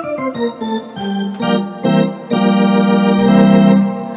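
Wersi Helios electronic organ played through its amplifier while being test-played after a circuit board repair: a quick falling run of notes in the first second, then held chords.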